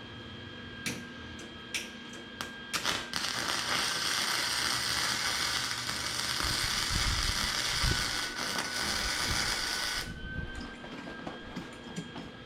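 Welding arc crackling steadily for about seven seconds as a clutch arm is welded onto a steel steering column, after a few clicks of setting up; it cuts off suddenly.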